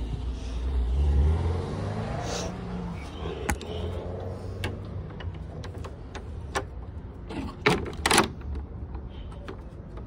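A motor vehicle engine accelerating, rising in pitch over the first couple of seconds and then running on as a low hum. Scattered sharp clicks and knocks follow, the loudest a pair near the end.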